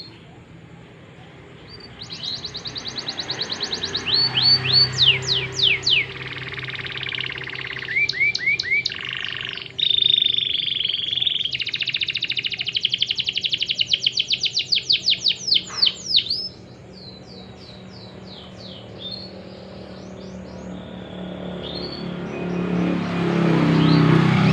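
Canary singing a long, varied song of rapid trills of repeated high notes and quick downward-sweeping whistles, stopping about sixteen seconds in. Music fades in near the end.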